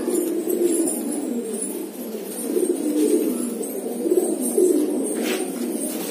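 Many Deobandi pigeons cooing at once, a continuous overlapping low burble with no pause.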